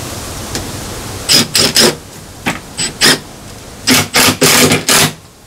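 Cordless drill/driver driving a screw into a metal panel in short trigger bursts: a quick run of three, a few single blips, then four more near the end.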